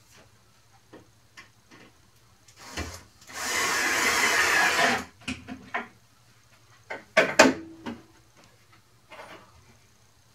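Cordless drill driving a screw into plywood, running for about a second and a half, followed a few seconds later by a couple of sharp knocks.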